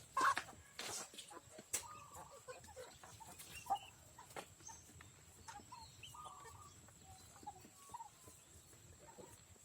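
Backyard chickens clucking: a scatter of short, separate calls, mixed with a few sharp knocks, the loudest just after the start.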